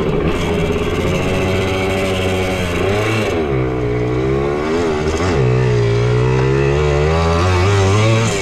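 Suzuki JR80 pit bike's small two-stroke single-cylinder engine running under throttle while riding, its pitch rising and falling with the throttle. The revs drop sharply and climb again twice, about three and five seconds in.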